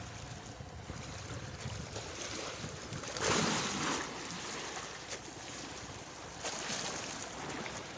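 Wind on the microphone over a steady wash of sea, with a louder surge of rushing noise about three seconds in and another near the end.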